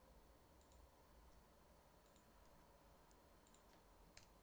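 Near silence with about six faint, scattered clicks from a computer mouse and keyboard in use; the sharpest comes near the end.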